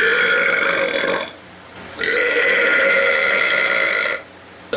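Two long, loud belches, each holding a fairly steady pitch. The first lasts about a second and a half; after a short pause the second runs for about two seconds.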